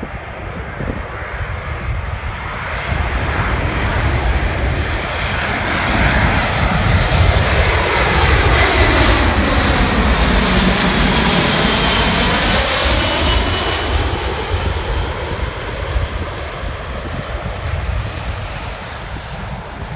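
Boeing C-17A Globemaster III's four turbofan engines on landing approach, passing low overhead: the jet noise builds, peaks about halfway through with a sweeping whoosh and a faint whine that drops in pitch as it goes over, then fades as it heads away.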